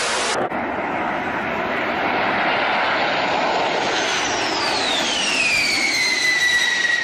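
Boeing B-52 bomber making a low pass: its jet engines roar steadily, growing louder, and from about four seconds in a high whine falls steeply in pitch and levels off as the aircraft goes by.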